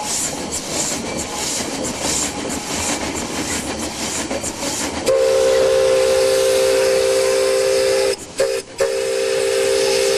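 Pelion Railway 600 mm narrow-gauge train running, then its whistle sounding a steady chord about five seconds in. It is broken twice by short gaps about three seconds later, then held again as one long blast.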